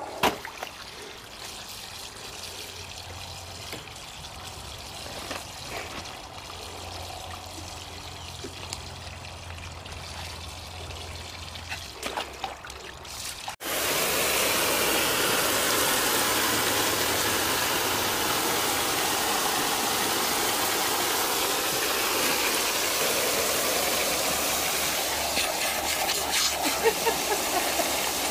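Garden hose with a spray nozzle running water into a plastic paddling pool: a loud, steady rush and hiss of water that starts abruptly about halfway through. Before it, a quieter stretch with a low hum.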